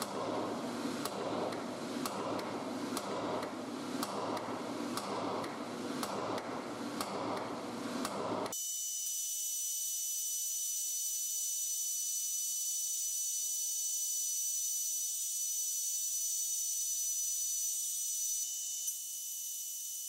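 Hammer blows about once a second on a drive rod, driving a rifling button through a steel .45 ACP pistol barrel held in a bench vise. Partway through, this gives way suddenly to a metal lathe running with a steady whine while the barrel is reamed and turned.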